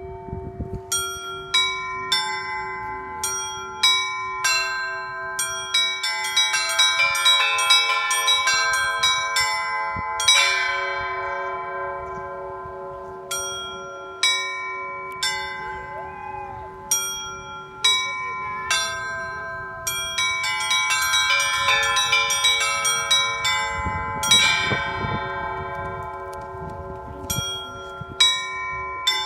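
Russian Orthodox festive bell ringing (zvon): several hand-rung church bells of different pitches struck in a repeating pattern. Quick flurries on the small treble bells ride over a steady beat of middle bells and the long hum of a deeper bell. The strikes grow denser and louder twice, about a quarter of the way in and again near the end.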